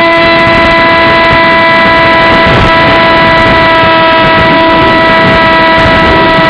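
Brushless electric motor and propeller of a Multiplex EasyStar RC plane on a 6S battery, heard from on board the plane: a loud, steady whine held at one pitch, over a rush of air noise.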